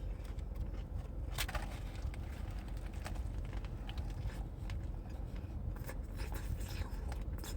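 Quiet close-up chewing of fried mozzarella sticks over a steady low hum, with a few faint clicks, one sharper about a second and a half in and more near the end.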